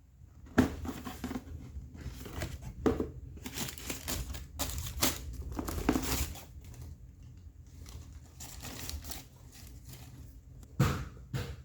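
Packaging paper crinkling and rustling in irregular bursts as a shoe box is unpacked. It is busiest over the first six seconds, sparser after, with a louder rustle near the end.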